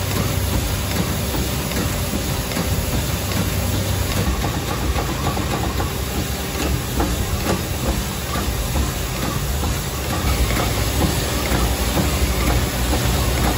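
Cylinder honing machine running its hone in a cylinder bore of a GM 5.3-litre LS V8 block, with honing oil flowing: a steady abrasive hiss over a low motor hum. This is the block being honed to take new pistons.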